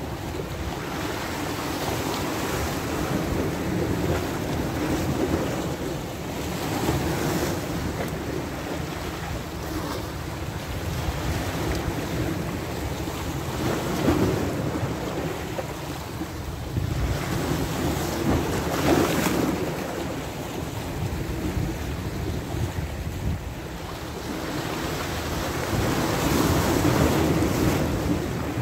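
Sea waves washing and breaking against shore rocks, the surf swelling and falling every few seconds, with wind buffeting the microphone. A louder swell comes near the end.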